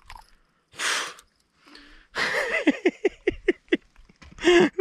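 A man's breathy vocal sounds: a hard exhale about a second in, then a quick run of short breathy bursts of voice, and a brief voiced sound near the end.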